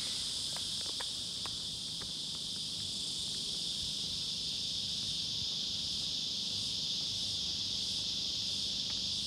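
Steady high-pitched chorus of insects chirring, with a few faint ticks in the first couple of seconds.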